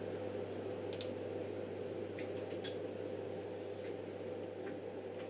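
A handful of light, separate button clicks as the signal source is switched from a sine wave to a square wave, over a steady low hum from the bench equipment.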